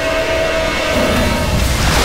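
A man plunging feet-first into a waterfall pool, with a loud splash near the end, over the steady rush of falling water. Steady sustained music tones run under the first part and fade out before the splash.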